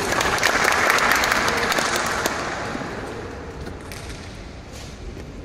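Spectators applauding a won point in a table tennis match, swelling in the first second or two and dying away by about three seconds in.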